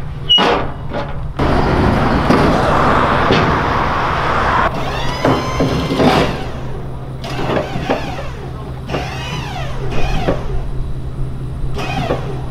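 Semi-trailer's hydraulic liftgate and a pallet jack at work over a steady low hum: the liftgate's motor whirrs for a few seconds, then squeaks rise and fall as the crate is moved onto the gate.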